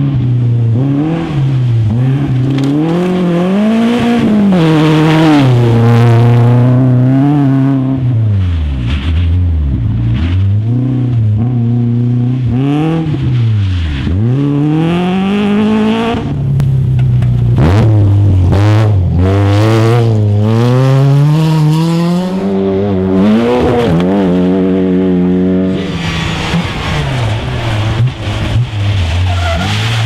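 Rally cars driven flat out on a gravel stage, one after another, among them a BMW 3 Series E30. The engines rev high and drop as they shift through the gears, the pitch rising and falling repeatedly as each car passes.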